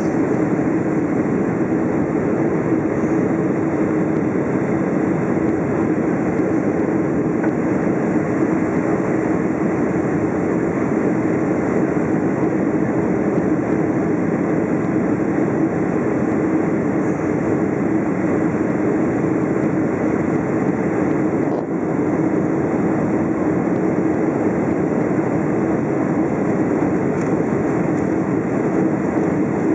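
Steady cabin noise inside a Boeing 767 on its landing approach with flaps extended: the even rush of engines and airflow with a constant low hum.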